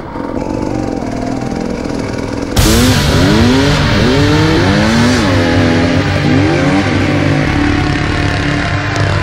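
Enduro dirt bike engine revving up and down over and over while being ridden, much louder from about two and a half seconds in.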